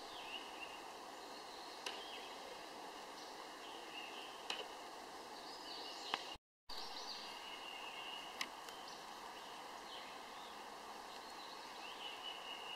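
Quiet woodland ambience: a steady low hiss with faint, short bird chirps now and then and a few sharp ticks scattered through it.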